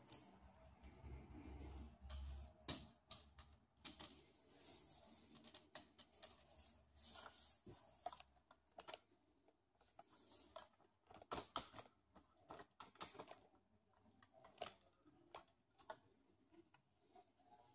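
Faint, scattered clicks and taps of a Manfrotto Compact Light aluminium tripod being unfolded and set up: its plastic leg-lock clips snap and the legs are handled, with a low handling rumble in the first few seconds.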